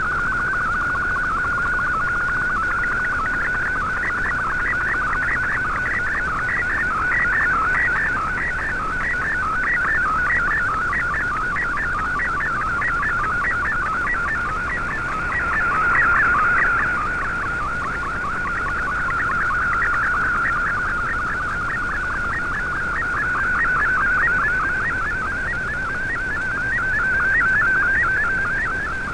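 MFSK digital picture transmission received over shortwave radio: a single whistling data tone that warbles rapidly in pitch as the image is sent, over faint static hiss.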